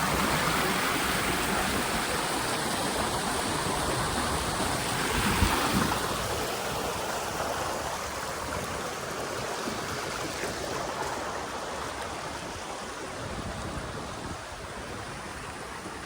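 Rushing water of a mountain stream and its waterfalls, a steady rush that grows gradually quieter after about six seconds, with one brief low thump about five and a half seconds in.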